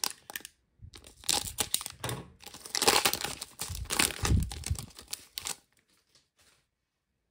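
A foil trading-card pack wrapper being torn open and crinkled by hand, in a run of irregular crackling rustles and rips that stop about a second and a half before the end.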